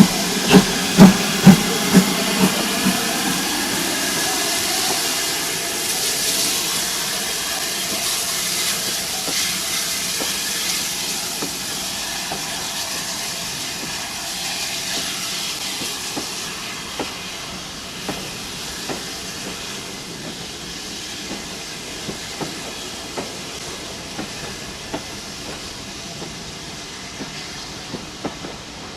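Steam locomotive, the GWR 2-8-0 tank No 4270, giving about half a dozen strong exhaust beats, then a steady hiss of steam that slowly fades. Train wheels click over rail joints about once a second.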